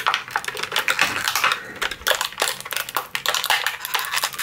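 Thin clear plastic packaging crinkling and crackling in the hands as a small plastic part is worked out of it, a dense run of irregular crackles.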